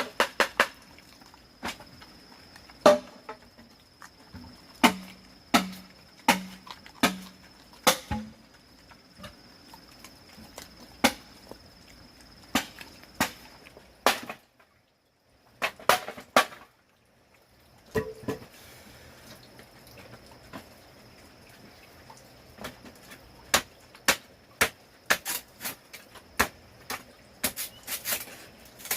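Irregular sharp knocks, one every second or so and sometimes in quick runs, over a steady thin high-pitched tone. The knocks stop for about three seconds in the middle.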